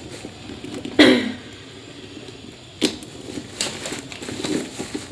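A handbag's chain strap being clipped onto the bag: a sharp click about a second in, the loudest, another near three seconds, and lighter rattling and handling between.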